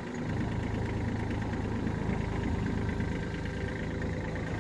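Kubota A211N compact tractor's diesel engine running steadily while the tractor is driven over rough ground.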